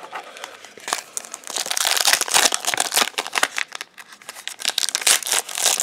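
Foil trading-card booster pack crinkling as it is torn open by hand, in dense crackling stretches with a brief lull about four seconds in.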